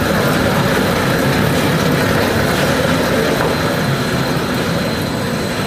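DISCOVERY TP stretch wrapping turntable running: the turntable drive turns the load while plastic stretch film pays off the carriage onto it. It makes a steady dense noise with a faint high whine.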